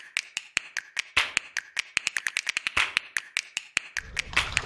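Rhythmic intro percussion: dry clicks and snap-like taps about five a second, with a heavier hit about a second in and again near three seconds. About four seconds in it gives way to a low rumble of wind on the microphone.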